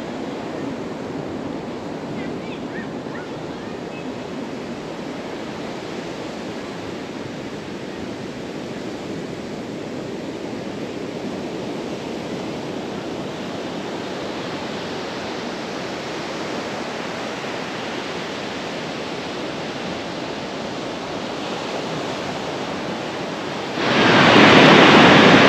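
Steady wash of ocean surf on the beach, mixed with wind. Near the end a much louder rushing noise cuts in suddenly.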